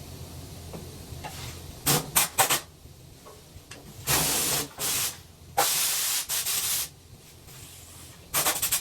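Bursts of hissing spray cleaning a wood chipper's anvil before a feeler-gauge gap reading: a few short spurts about two seconds in, then three blasts of about a second each.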